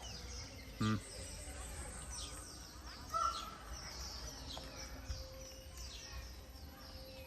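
Small birds chirping over a steady outdoor background: many quick, high, downward-sweeping chirps, with a short louder call about three seconds in.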